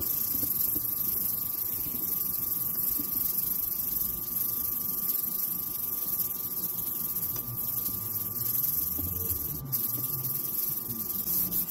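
800-grit sandpaper disc rubbed by hand back and forth over a plastic headlight lens, scrubbing off the rough, yellowed oxidized surface. A steady high hum runs under the rubbing throughout.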